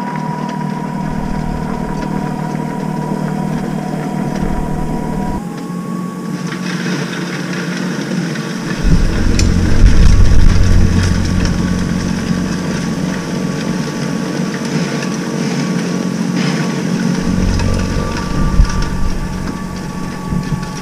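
Greenworks Pro 80V two-stage electric snow blower running at a distance with a steady motor whine. About five seconds in the whine steps up in pitch and a rushing hiss joins it as the machine throws snow. Over it runs a low rumble that comes and goes.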